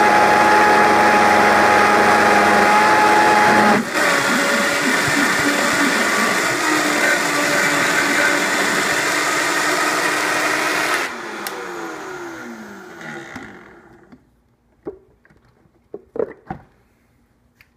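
Vitamix blender motor running at high speed, churning a thick batch of hummus. About four seconds in its pitch drops to a lower speed. About eleven seconds in it is switched off and spins down with a falling whine, followed by a few light clicks near the end.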